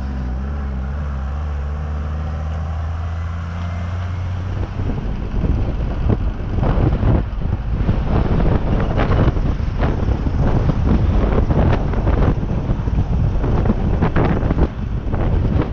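Off-road vehicle engine running steadily. About four and a half seconds in, gusty wind noise on the microphone rises over it and stays loud.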